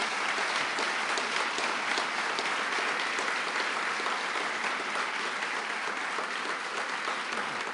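Audience applauding, a steady wash of many hands clapping that eases off slightly near the end.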